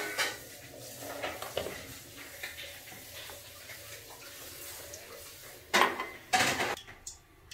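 Kitchenware clattering while batter is mixed in a steel bowl: light clinks, water poured in from a glass, then two loud short clatters near the end.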